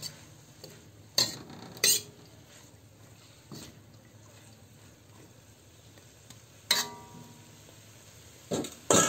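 Metal spatula clinking and scraping against a wok as shredded cabbage and carrots are stir-fried, over a faint sizzle. A handful of sharp clinks come spread apart, the loudest near the end, some ringing briefly.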